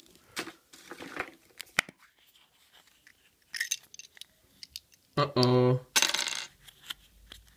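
A hard plastic Kinder Surprise toy capsule being handled and pried open: scattered light clicks and rattles of plastic, with a louder noisy scrape about six seconds in.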